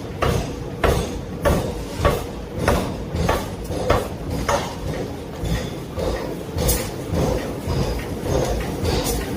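Heavy forging hammer striking hot metal in a regular rhythm, about one or two blows a second, with a steady machinery hum underneath; the blows grow less distinct about halfway through.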